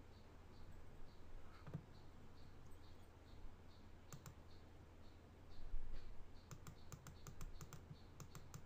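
Faint clicking at a computer: a soft knock a little past halfway, then a run of quick sharp clicks near the end. Under it are a low steady electrical hum and a faint high tick repeating about twice a second.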